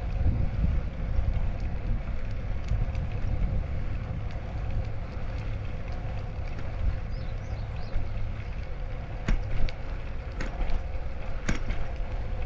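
Wind buffeting the microphone over the low rumble of a DAHON K3 folding bicycle rolling along, with a faint steady hum and a couple of sharp clicks in the last few seconds.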